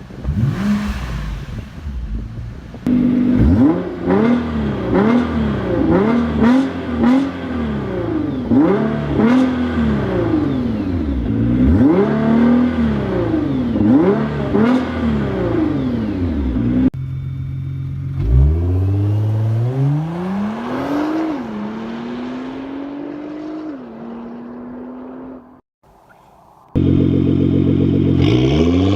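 Nissan GT-R R35's twin-turbo V6 revving through its exhaust in several edited clips. First come a string of quick blips, revs rising and falling about once a second. Then comes a longer pull where the revs climb, dip briefly, climb again and hold, before a cut to the engine running steadily and starting to rev up near the end.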